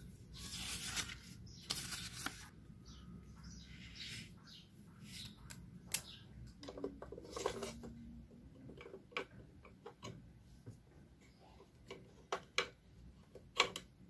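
Paper rustling under a sliding hand in the first couple of seconds, then small, sharp plastic clicks and taps as rolls of washi tape are handled and set into a clear plastic organizer drawer, the loudest few near the end.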